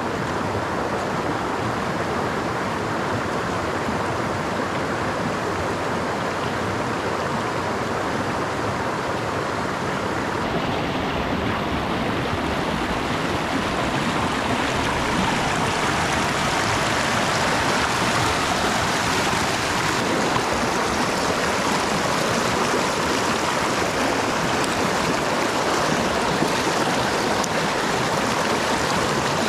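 Mountain creek water rushing steadily, a continuous even sound of flowing water.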